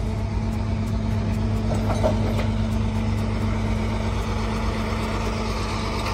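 Flatbed tow truck's engine running steadily at idle, a continuous low hum.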